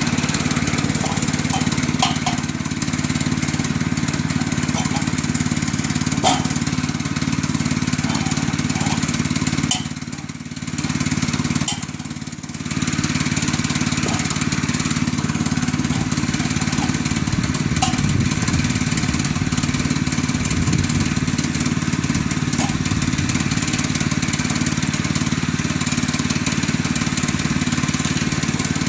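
Small gasoline engine of a Woodland Mills HM122 portable bandsaw mill running steadily, with a few sharp clicks and knocks. The level drops briefly twice near the middle.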